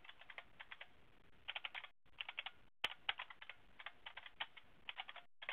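Computer keyboard typing: faint key clicks in quick bursts, with short pauses between them and one sharper click about halfway through.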